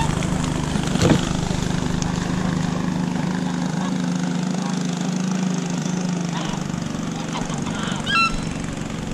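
Domestic geese honking, with one clear honk near the end, over a steady low hum; a single knock about a second in.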